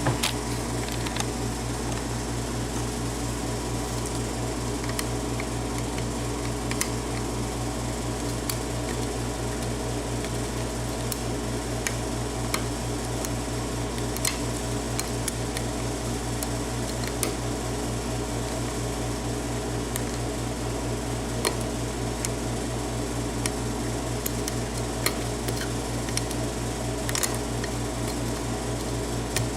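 A steady mechanical hum, like a fan, runs throughout, with sparse faint clicks of a lock pick working against the pins of a Yale pin-tumbler cylinder.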